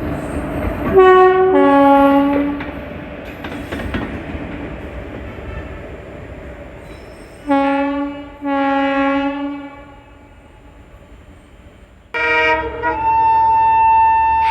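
Indian Railways WAP-4E electric locomotive sounding its horn in two pairs of blasts, one pair near the start and one about halfway through, over rail and wheel noise. Near the end a diesel locomotive's horn starts suddenly and is held as a long steady note over the engine's low rumble.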